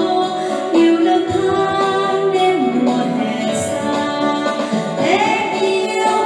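A song: a woman's singing voice over instrumental backing music.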